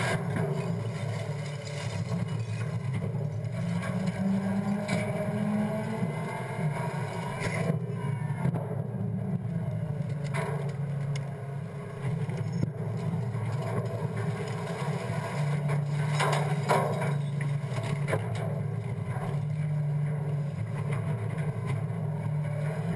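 Scorpion automated side-loader refuse truck running through its dump-and-pack cycle: a steady engine hum that rises in pitch and eases back. Several sharp knocks and clatters come from the metal hopper as trash lands and is packed.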